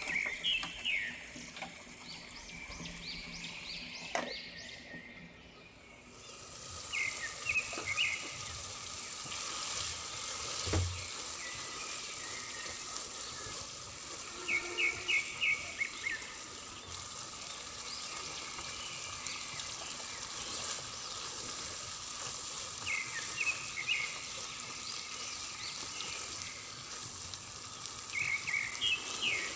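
Tripe frying in a pan of oil and spices, giving a steady sizzle that drops away briefly about five seconds in and then comes back. Short bursts of quick, high bird chirps come over it about five times.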